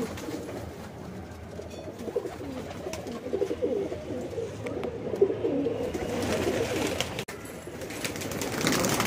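Domestic fancy pigeons cooing in a loft cage, several low wavering coos overlapping. Bursts of rushing noise come in the second half.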